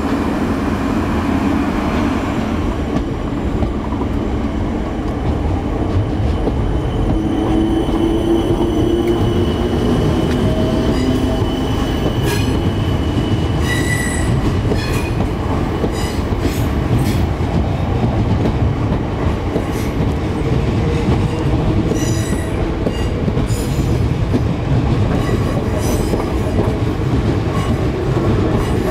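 Suburban electric multiple unit moving along the platform with a steady rumble and a faint gliding traction-motor whine. From about a third of the way in, its wheels click repeatedly over rail joints and pointwork, with short squeals.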